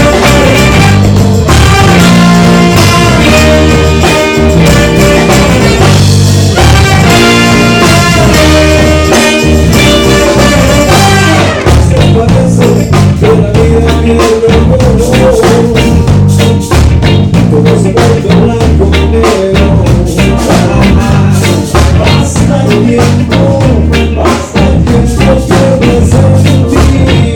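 Reggae band playing an instrumental passage: a heavy repeating bass line under drums and chords. About eleven seconds in, the arrangement changes, the higher parts thinning and a held melodic line coming forward.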